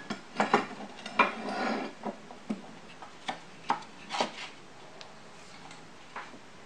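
Handling clatter of metal fittings and a plywood form being fitted against a mold: a rubbing scrape in the first two seconds, then about half a dozen separate sharp knocks and clicks.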